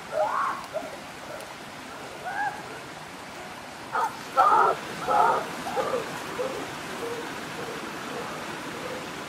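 Steady rush of a shallow, rocky stream, with children's short, high-pitched calls and shouts at the start and a cluster of them from about four to six seconds in.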